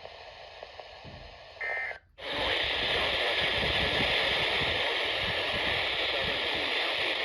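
Weather radio receiver hissing between broadcasts: faint static, a short beep about one and a half seconds in, a brief dropout, then loud steady static from about two seconds on.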